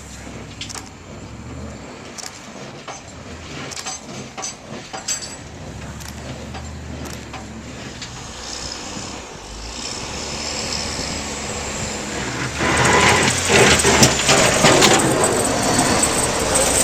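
Sanitation truck fitted with a snow plow, passing with its engine running; about three-quarters of the way through a loud, harsh rushing noise sets in as it comes close.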